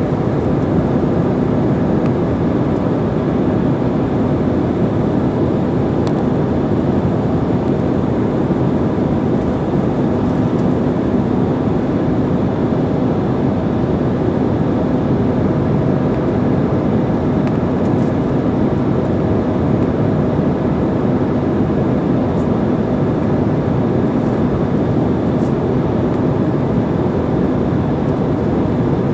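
Steady engine and airflow noise inside a jet airliner's cabin in flight, an even rushing sound with a faint constant hum.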